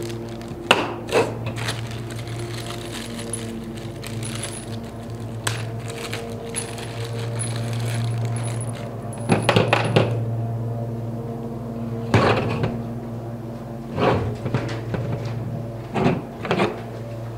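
Small metal bolts and nuts clinking, and plastic hardware bags crinkling, as they are handled: scattered sharp clicks and short clatters over a steady low hum.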